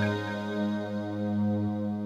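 Roland JD-800 software synthesizer playing its "NuAge Synth" preset: a held chord rings on, its brighter upper notes fading away while the low notes sustain.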